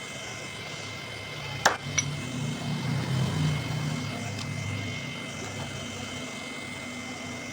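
Two sharp metallic clicks, close together, from handling parts of a homemade PCP air pistol's hammer mechanism. A low rumble then swells and fades over a few seconds.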